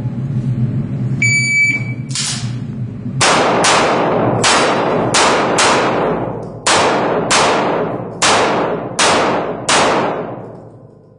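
An electronic shot timer beeps once to start the run, then a competitor fires about ten pistol shots in quick pairs and singles over some eight seconds. Each shot rings on with a long echo.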